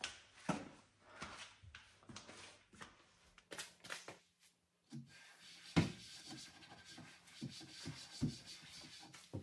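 Household items being handled, rubbed and set down inside a wooden cupboard as it is tidied: scattered light knocks and rubbing, with a brief pause about four seconds in and a louder knock a little past halfway.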